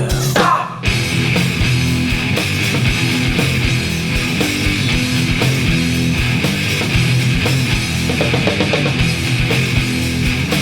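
Instrumental passage of an alternative metal/grunge song: heavily distorted electric guitars over a driving drum kit, with a short break less than a second in before the full band comes back in.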